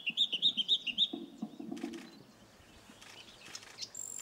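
Male firethroat singing: a fast run of about nine sharp, repeated notes in the first second, then a thin, high, steady whistle near the end.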